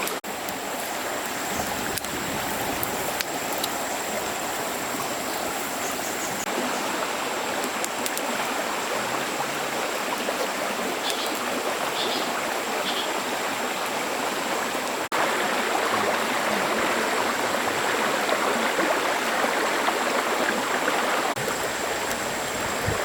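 Stream water flowing steadily, with a thin steady high tone over it. The rush jumps slightly louder at an abrupt break about 15 seconds in.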